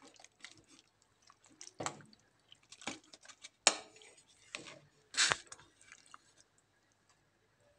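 Wooden spoon stirring and scooping soft, overcooked boiled beans in their cooking liquid in a metal pressure-cooker pot: irregular wet squishing and sloshing with a few sharper knocks, the loudest about three and a half seconds in.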